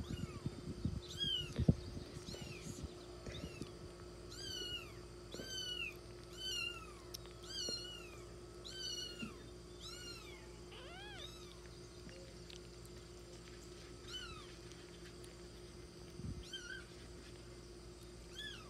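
A very young kitten mewing over and over in thin, high cries while being syringe-fed, about one a second at first, then fewer and further apart after about ten seconds.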